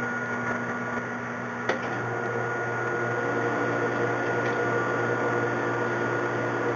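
Metal lathe running with a steady motor hum. About two seconds in there is a single click, and the tone of the hum changes after it.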